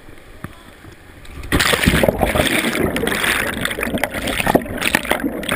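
Whitewater rushing down a river drop, then about one and a half seconds in a sudden loud crash of water as the kayak plunges into the pool below and goes under. Churning, bubbling water follows, heard with the camera submerged.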